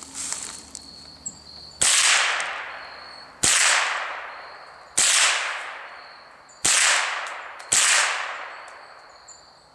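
Ruger 10/22 semi-automatic rifle firing .22 Long Rifle rounds: five single shots about one to one and a half seconds apart, each with a long fading tail. Crickets chirp steadily between the shots.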